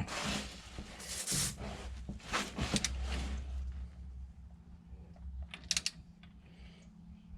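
Ratchet-head torque wrench being worked on a differential cover bolt: rasping and knocking tool strokes for the first three seconds, then a few sharp clicks about five and a half seconds in.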